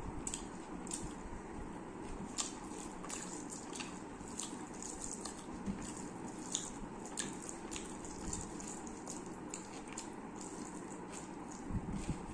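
Eating sounds: chewing with frequent small wet clicks, and fingers squishing schezwan rice on a steel plate, with a few soft knocks near the end.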